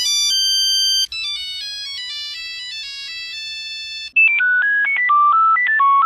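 Nokia Lumia 800 ringtones playing: short electronic melodies of bell-like notes. One tune gives way to another about a second in and again about four seconds in, and the last tune is louder, lower and held over a steady low note.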